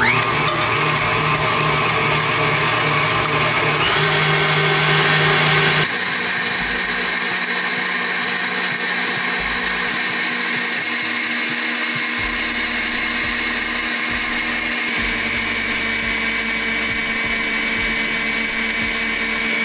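KitchenAid Ultra Power stand mixer running with its wire whisk, beating gelatin and hot honey syrup into marshmallow: a steady motor whine with whisk noise. It drops a little in level about six seconds in, then runs on evenly.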